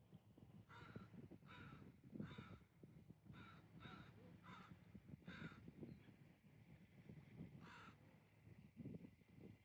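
A crow cawing repeatedly: about eight short, harsh caws at uneven intervals, the last one after a pause of about two seconds, heard faintly over a low outdoor rumble.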